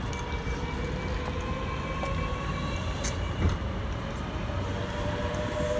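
Great Northern electric multiple unit pulling away from the platform. Its traction motors give a whine that rises slowly in pitch as it gathers speed, over the low rumble of the wheels on the rails. A single knock comes about three and a half seconds in.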